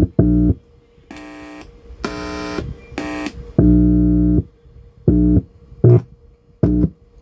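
About eight short synthesized test tones of differing pitch, each lasting a fraction of a second, played through the Jumbo stereo system's subwoofer and left and right speakers. It is the first sound check after both TDA2030 bridge-amplifier ICs were replaced to cure crackling and hissing, and the tones come through without crackle.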